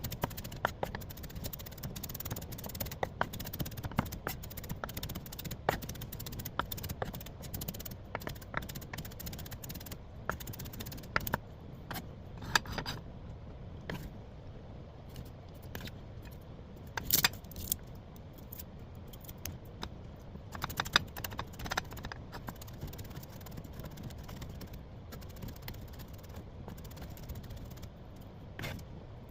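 Spatula scraping and clinking against a pan in irregular strokes while stir-frying leftover rice, with a steady low rumble underneath and a few louder knocks partway through.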